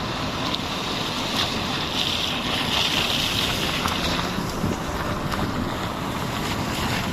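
Steady heavy rain with wind buffeting the microphone in a choppy low rumble, and scattered drops ticking.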